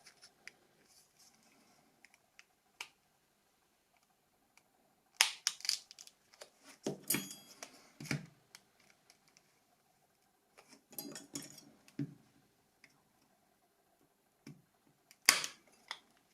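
Scattered sharp plastic clicks and snaps, in a few short clusters with the loudest snap near the end, as the shell of a Nokia 6600 slide phone is handled and taken apart.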